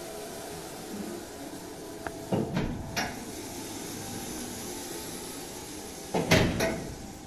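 Tall pull-out museum gun display panel sliding on its track. Knocks come a little over two seconds in, and a louder clatter about six seconds in.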